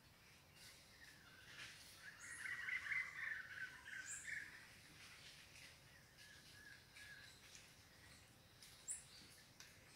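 Wild animal calls: a harsh, raspy chattering call, loudest about two to four seconds in, with a few short, high chirps scattered through the rest.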